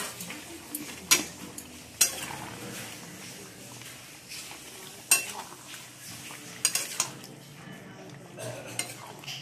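A metal spatula scrapes around a cooking pan and knocks sharply against it a few times while stirring freshly added potato chunks into chicken curry.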